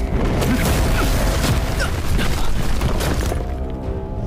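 Battle sound effects in an animated fantasy fight: a dense rushing blast with several crashes and impacts. About three seconds in it thins out and a sustained music chord comes in.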